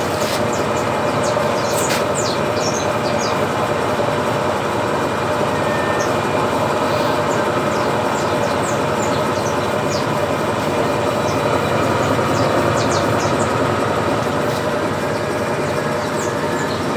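Electrolux 8 kg washing machine on its final spin, the drum and motor running with a steady hum and whir, with scattered light ticks.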